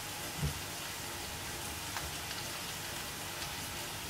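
Hand rubbing and kneading powdered semolina and sugar with ghee in a steel bowl: a soft, steady grainy rustle, with one dull knock about half a second in.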